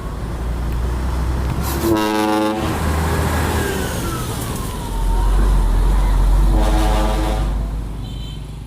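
Multi-trumpet air horns on a truck blare in two short chord blasts, about two seconds in and again near the end. Under them a heavy diesel engine rumbles, swelling through the second half. Between the blasts a single tone slides downward, and everything fades near the end.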